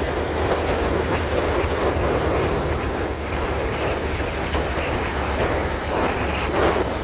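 Steady rush of wind over the microphone with engine and road rumble underneath, from riding a 70cc motorcycle at speed.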